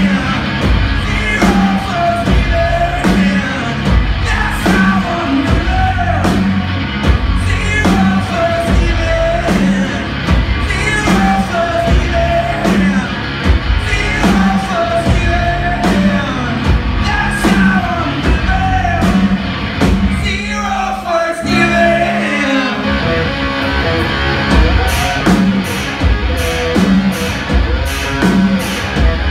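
Live rock music from a two-piece band: electric guitar and drums under shouted singing. The band drops out for a moment about two-thirds of the way through, then comes back in with cymbals crashing.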